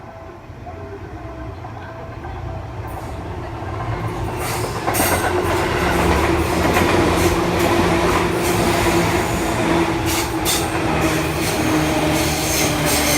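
Seibu Shinjuku Line electric commuter train passing close by, growing louder over the first five seconds and then staying loud. Its wheels click over the rail joints, with a steady tone under the running noise.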